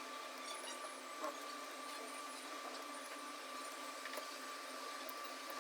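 Quiet room tone: a steady hiss with a faint steady high whine, and a few very faint small ticks.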